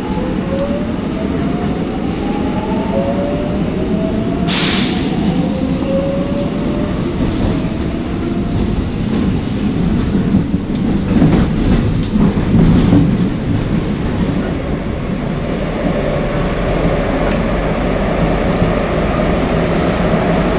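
Subway train running on its rails: a loud, steady rumble and rattle of wheels on track. Over the first several seconds a whine rises in pitch, and a brief sharp hiss comes about four and a half seconds in.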